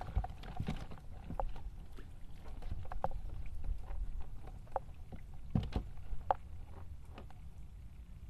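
Scattered light knocks and taps on a plastic sit-on-top kayak as gear is handled aboard, over a low steady rumble; the loudest knocks come about five and a half to six seconds in.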